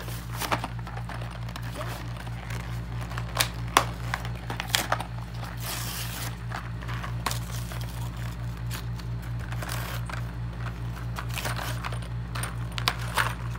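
Cardboard backing being torn and peeled off a plastic blister pack: scattered tearing rustles and sharp plastic clicks, busiest around a few seconds in and near the end. A steady low pulsing hum runs underneath.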